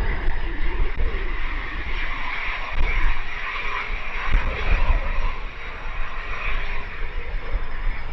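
Cessna Citation CJ2 business jet's turbofan engines running with a steady high whine over a broad hiss. Strong gusty wind buffets the microphone with uneven low rumbling.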